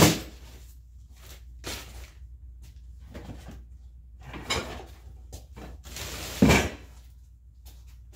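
Household items being handled and set down: a sharp knock right at the start, a few lighter knocks, and a louder, longer thump about six and a half seconds in.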